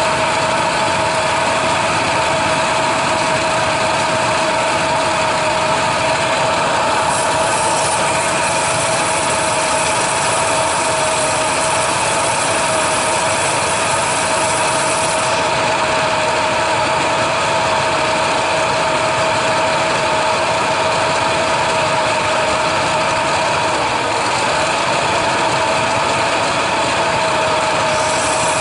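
A steady mechanical hum with two constant tones, unchanging in level throughout.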